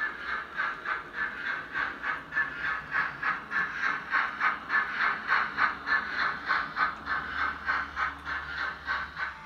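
Steam-locomotive chuffing for the Hornby 2P model loco running, a steady even beat of about four chuffs a second.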